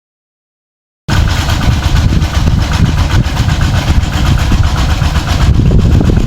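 Dead silence for about the first second, then a small engine running steadily and loudly: the engine of the water pump drawing the pond down.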